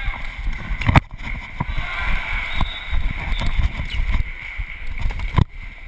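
Rumble and dull thuds of a chest-mounted action camera as its wearer moves and runs on a gym court, with two sharp knocks, about a second in and again near the end, over a steady background din of the gym.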